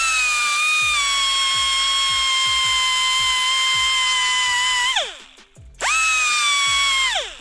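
Air die grinder with a Roloc abrasive disc running at full speed with a steady high whine while cleaning a battery cable lug, then spinning down with falling pitch about five seconds in. It is triggered again a second later for a shorter run that winds down near the end.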